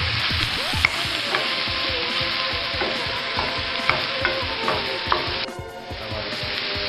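Diced chicken, portobello mushroom, onion and bell pepper sizzling in a hot stainless-steel skillet while a wooden spoon stirs them, clicking against the pan a few times. The sizzle dips briefly near the end.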